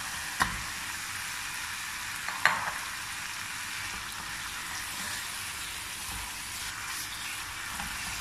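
Spiced masala paste frying in coconut oil, sizzling steadily as raw chicken pieces are added and stirred in with a spatula. A couple of sharp knocks come from the pan, the loudest about two and a half seconds in.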